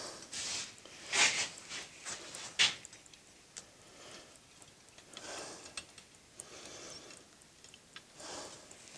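Irregular scraping and crunching of foundry sand being broken up and dug through by hand to uncover a freshly poured bronze casting, with a few sharper clicks.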